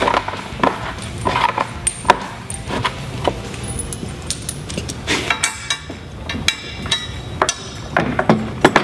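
Metal hardware clinking and knocking irregularly as bolts and connecting pieces are taken from a tool bin and fitted to a sprayer boom extension, over background music.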